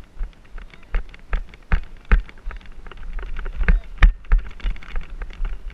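Irregular clatter of knocks and thumps over a low wind rumble on an action-camera microphone during lacrosse play. The loudest knock comes about four seconds in.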